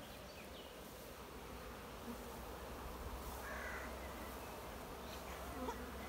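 A honeybee swarm buzzing steadily as it is hived, the bees crawling up a sheet into the hive box.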